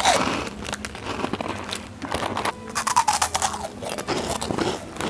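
People biting and chewing Monster Munch pickled onion corn snacks: a run of irregular crisp crunches.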